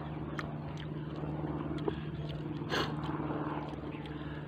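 A small engine running steadily at an even pitch, with a few light clicks and one brief louder noise a little past the middle.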